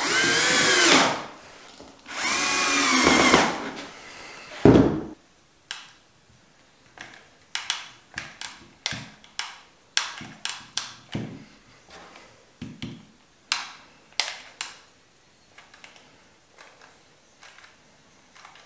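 Cordless drill-driver driving screws into a chipboard mold in two runs, its motor whine rising and falling, followed by a single heavy thump. Then a long run of light clicks and taps.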